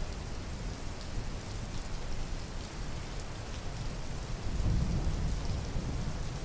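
Steady rain falling, with a low rumble of thunder that swells about four and a half seconds in.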